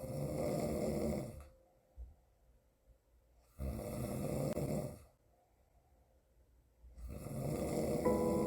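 A young woman snoring: three rough, noisy snores, each about a second and a half long, spaced about three and a half seconds apart with quiet breaths between.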